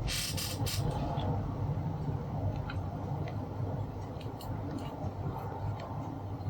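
Light clicks and taps from handling small tools and the label maker's circuit board while the ribbon-cable joint is reheated with a soldering iron, over a steady low background hum. A quick run of clicks comes in the first second, and fainter ticks are scattered after it.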